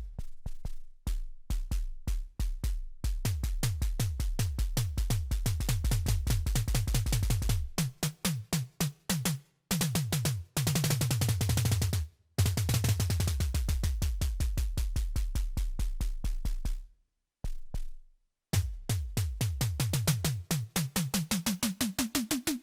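Yamaha MODX/Montage synthesizer playing an FM performance from its DX7 library: a fast, pulsing run of short repeated notes over a shifting bass, breaking off twice and starting again. In the last few seconds the repeating notes climb steadily in pitch.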